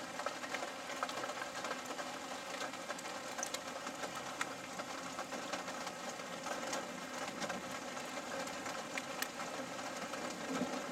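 A vehicle's engine running steadily, heard from inside the cab, with scattered faint ticks.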